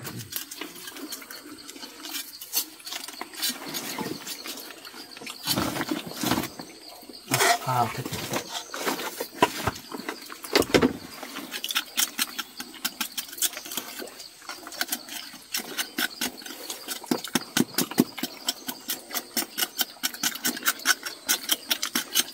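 Knife blade scraping a hand-held block of wood in quick repeated strokes, about three or four a second, getting steadier and more regular in the second half. A few louder thuds come near the middle.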